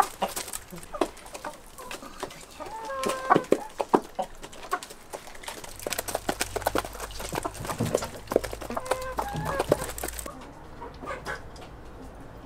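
Domestic hens clucking while they feed, with many quick sharp ticks of beaks pecking. Two short bursts of pitched clucking come about three seconds in and again around nine seconds. The sound drops to a quieter, duller background near the end.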